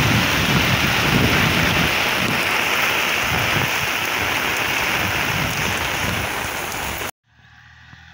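Heavy rain pouring down, with drops hitting an umbrella held over the microphone. It cuts off suddenly about seven seconds in, leaving a faint outdoor hush.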